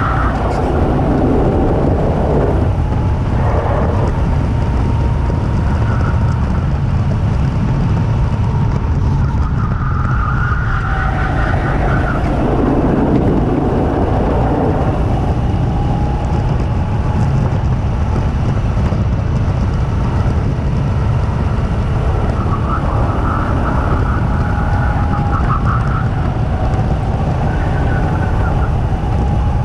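Two-seater go-kart running at speed: its motor gives a steady whine whose pitch slides down and back up several times, over heavy wind rumble on the kart-mounted microphone.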